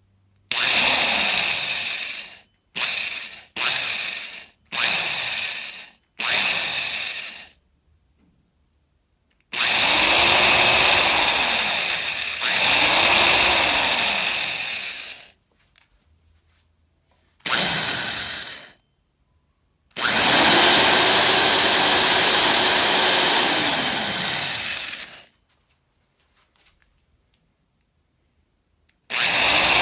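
Old electric drill with a small bit boring a pilot hole into a wooden rifle stock. It starts with about five quick trigger bursts, then runs in longer pulls of several seconds, the motor whining and winding down each time it is released, with short pauses between.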